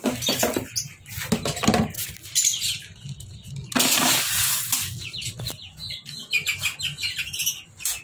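Seed mix rustling and pouring as it is scooped from a plastic bucket, loudest about four seconds in, with scattered clicks. Birds chirp and flap their wings throughout.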